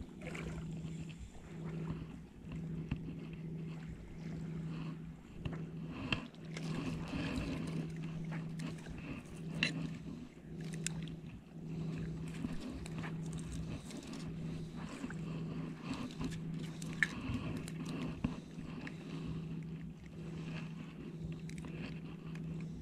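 Daiwa Airity 1000D spinning reel being cranked steadily on a retrieve: a low gear hum that rises and falls with each turn of the handle, a bit faster than once a second, with a few light clicks.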